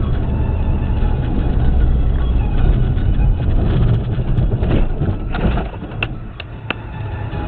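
A heavy vehicle engine running with a dense low rumble that eases off near the end, with a few sharp clicks or knocks about six seconds in.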